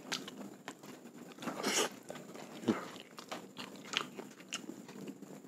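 Close-up eating sounds of a person chewing rice and chicken, with a run of short wet mouth clicks and a few louder chews about two seconds in and near the middle.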